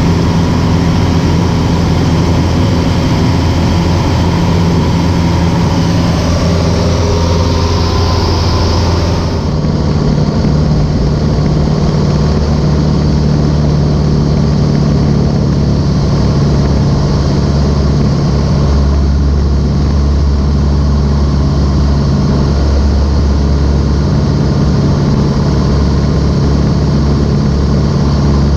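Cessna 150J's Continental O-200 four-cylinder engine and propeller running steadily with an even drone. About nine and a half seconds in, the drone switches abruptly to a slightly different pitch and then carries on steadily.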